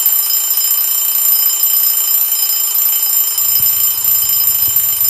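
Alarm clock ringing: a loud, steady, high-pitched ring that goes on without pauses.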